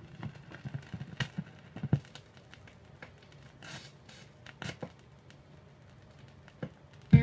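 Stylus riding the lead-in groove of a vinyl 45 rpm single played at 33 1/3 rpm: irregular surface-noise crackles and pops over a faint low hum. Slowed music begins at the very end.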